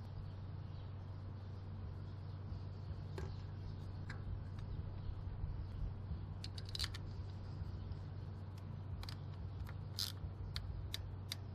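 Light, scattered clicks and taps of hand work on the engine: a new ignition coil is set into place and its bolt is tightened with a ratchet. The clicks come more often in the second half, over a steady low hum.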